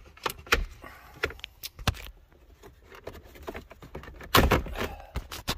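Hard plastic interior trim of a Ford F-150's center console clicking and knocking as the pieces are handled and pressed back into place: a run of sharp, uneven clicks, with a louder cluster about four and a half seconds in.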